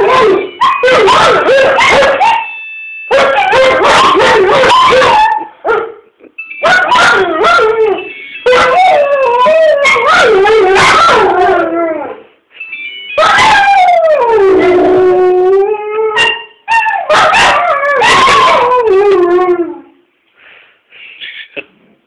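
A small dog and a larger dog howling together in long, wavering bouts, with high yips mixed in, set off by a phone ringtone whose steady tones can be heard between the bouts. The howling dies away near the end.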